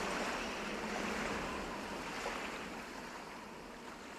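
Ocean surf sound at the close of a song, an even rushing that slowly fades, heard as played back through in-ear monitors.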